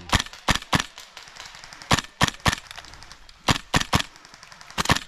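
Airsoft guns firing sharp single shots, about ten in short groups of two or three.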